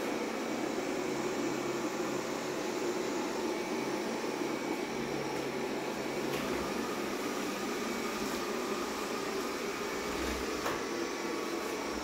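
Xiaomi Mi Robot Vacuum-Mop Essential robot vacuum running on turbo suction as it drives across a tiled floor: a steady fan whir, with a few faint clicks.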